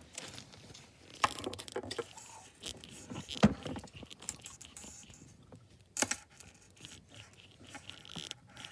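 Handling noises of a small fidget toy being squeezed and fiddled with: irregular clicks, rustles and scrapes. The sharpest knock comes about three and a half seconds in and another about six seconds in.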